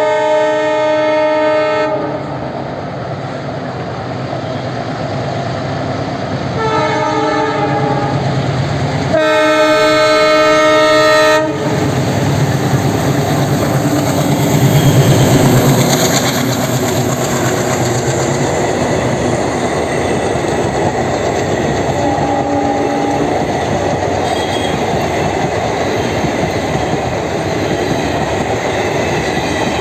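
Indian Railways WDM3D diesel locomotive passing with an express train. Its multi-tone air horn sounds at the start, then in two long blasts about seven to eleven seconds in, and briefly again a little past twenty seconds. Between the blasts the locomotive's engine chugs and the coach wheels clatter over the rail joints, loudest as the locomotive goes by about fifteen seconds in.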